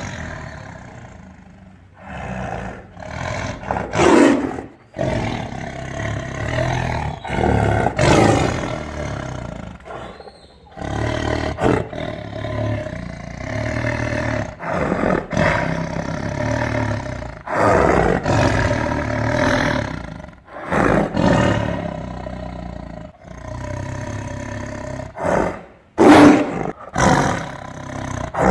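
Angry tiger growling and roaring, a string of rough calls a few seconds each with short breaks between them.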